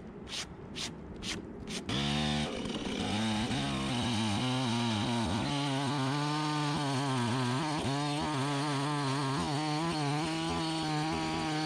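A few short sharp knocks, then from about two seconds in a Stihl chainsaw runs at full throttle, cutting into an apple-wood block, its engine pitch wavering up and down under load. The chain has been dulled by nails hidden in the wood.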